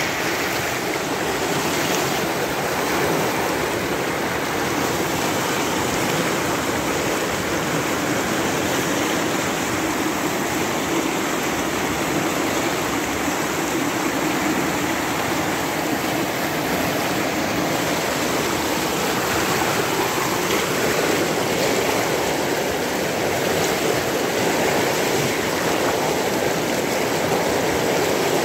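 Muddy, sediment-laden flash-flood torrent rushing down a river channel, a steady roar of churning water without a break.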